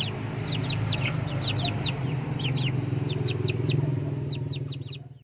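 Four-month-old Rhode Island Red chickens chirping in many quick, short, falling peeps while feeding, over a steady low hum. The sound fades out near the end.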